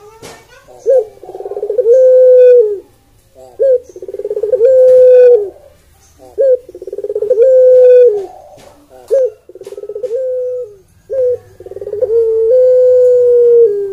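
Barbary dove of the Indonesian long-cooing 'puter pelung' type, cooing over and over: five coos, each a short note followed by a long rolling coo that drops in pitch at the end.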